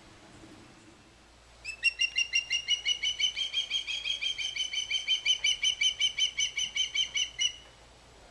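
Osprey calling: a fast run of high, even chirping notes, about six a second, starting about two seconds in and going on for nearly six seconds.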